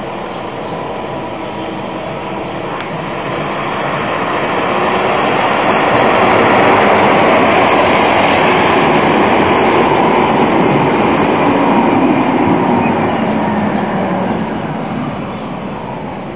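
Bombardier Flexity low-floor tram approaching and running past close by, with a car passing in front at the same time; the rolling noise swells to a peak in the middle and fades away near the end.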